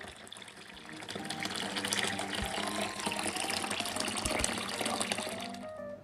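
A stream of water pouring into a plastic basin, splashing as it fills; the pour grows louder about a second in and stops just before the end. Light background music plays underneath.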